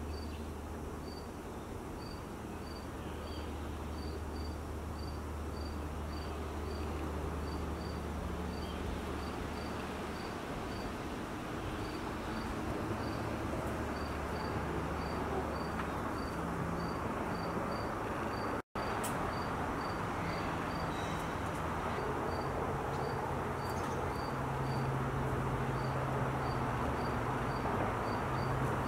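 Cricket chirping steadily, short high chirps about two or three a second, over steady low background noise. The audio drops out for an instant about two-thirds of the way through.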